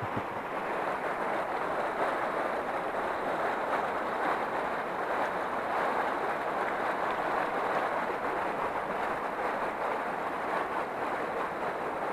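Rushing water of a shallow river riffle pouring over and around rocks: a steady, even hiss.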